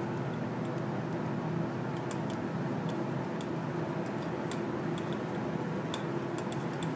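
Niagara traction elevator car descending: a steady hum of the ride with a held low tone, and light irregular ticks over it.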